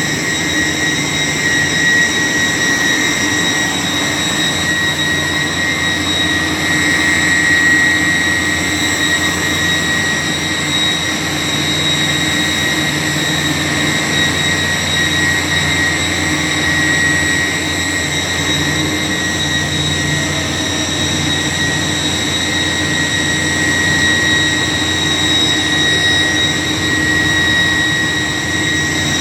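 York YK 1000-ton centrifugal chiller running: a steady high whine from the centrifugal compressor over a low machine hum.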